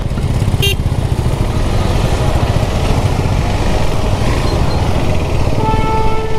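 Motorcycle engine running as the bike rolls slowly through heavy traffic, with road noise around it. Near the end a vehicle horn sounds one steady honk.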